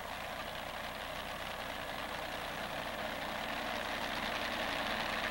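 Modified pulling tractor's engine idling while hooked to the sled, growing a little louder toward the end.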